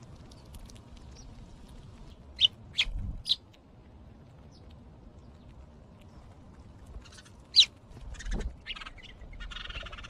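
Short, sharp bird chirps: three close together about two and a half seconds in and one more about seven and a half seconds in. Near the end, rock pigeons splashing and fluttering their wings in a stone birdbath.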